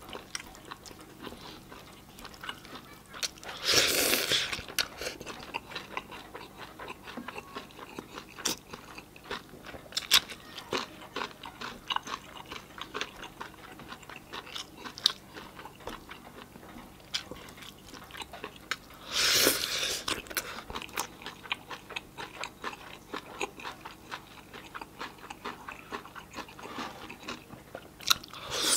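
Close-miked eating sounds: a man chewing and smacking his lips, with small clicks and squelches as his fingers mix rice and curry on a plate. Two louder bursts of noise, each about a second long, come about four seconds in and again near the twentieth second.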